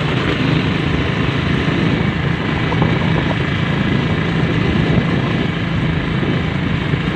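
Honda Sonic motorcycle engine running at a steady cruising speed, mixed with wind and road noise rushing past.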